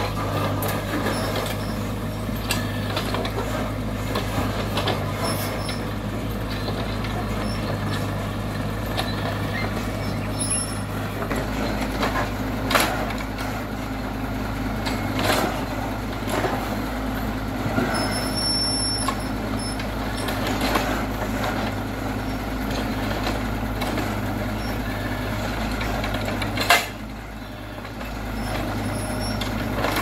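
Mini excavator and dump truck at work: steady diesel engine drone with a few sharp metallic clanks as the bucket drops rubble into the steel truck bed. The loudest clank comes near the end.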